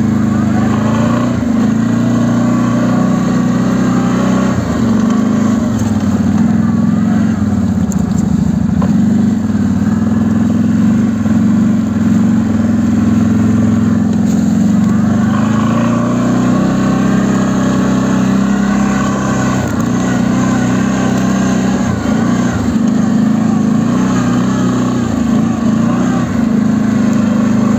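ATV (quad bike) engine running under load while driving through snow, its note dipping and rising with the throttle several times.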